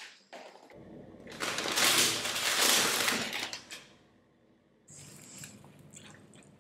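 Paper takeaway bag crinkling and rustling as cardboard food boxes are pulled out of it, loudest in the middle. Softer bite sounds come near the end.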